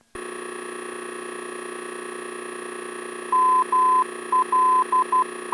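Melbourne VOR's Morse code identifier in the aircraft's audio: a tone near 1 kHz keyed dash-dash, dot-dash-dot-dot, dash (M, L and the start of B of 'MLB'), starting about three seconds in, over a steady electrical hum. The ident confirms the nav radio is tuned to the right station.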